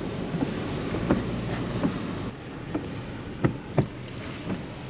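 A vehicle driving slowly through floodwater, heard from inside the cabin: a steady wash of water around the tyres and body, with a few light clicks scattered through it.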